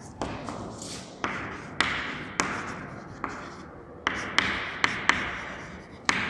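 Chalk writing on a chalkboard: about ten sharp taps as the chalk strikes the board, each trailing off into a scratchy stroke.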